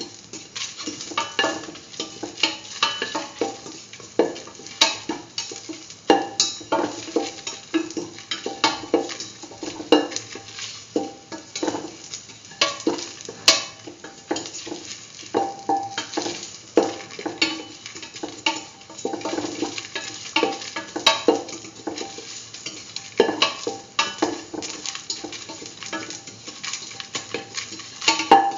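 A cooking utensil scraping and knocking against a stainless steel pan, irregular strokes about one or two a second, as cumin seeds, garlic, ginger and dried red chillies are stirred and sautéed in a little oil, with a faint sizzle underneath.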